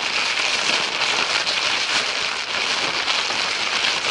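A steady hiss with a fine crackling texture, even in level throughout.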